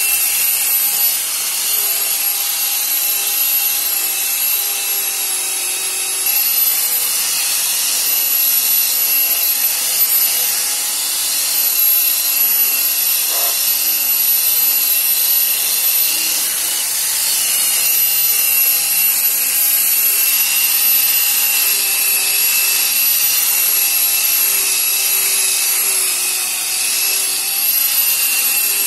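Electric car polisher running steadily as it buffs car paint: a steady high whine over a hiss.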